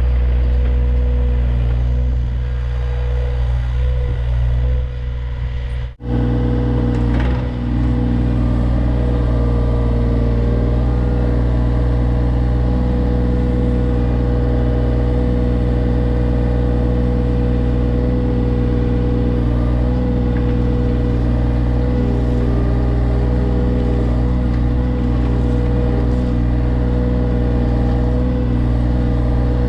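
John Deere 35G mini excavator's diesel engine running steadily under work, with a steady whine above the engine note. The sound cuts out for an instant about six seconds in and picks straight back up.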